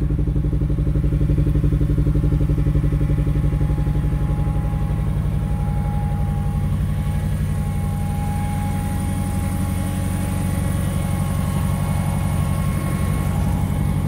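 Car engine idling steadily.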